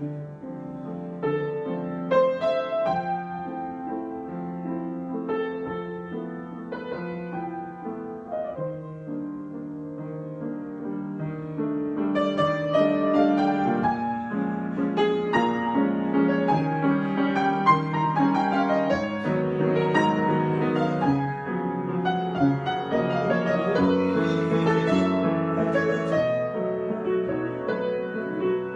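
Solo piano playing an improvised piece, chords and melody notes ringing over one another; the playing grows fuller and a little louder about twelve seconds in.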